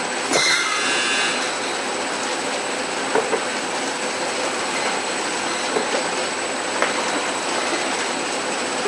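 Automated tray-stripper packaging line running: belt conveyor and side grip belts give a steady mechanical rushing noise, with a brief squeal about half a second in and a few faint clicks as cases pass through.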